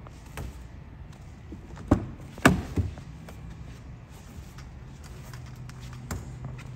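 Door of a Jaguar F-Type being opened: a few sharp clicks and knocks from the handle and latch, the loudest about two and a half seconds in. A faint steady low hum follows near the end.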